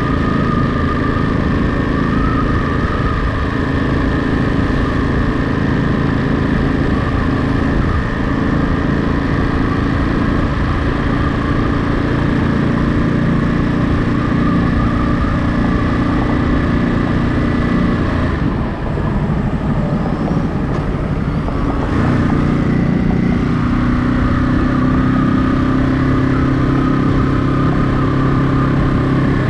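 Ducati Monster 937's 937 cc L-twin engine running steadily as the motorcycle is ridden. About two-thirds through, the engine note dips briefly, then settles into steady running again.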